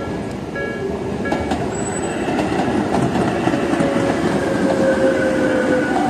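Japanese level-crossing warning bell dinging about every 0.7 s, soon drowned by a Tobu 20050 series electric train running over the crossing. Wheel-on-rail clatter and squealing tones that slowly fall in pitch as the train slows into the station.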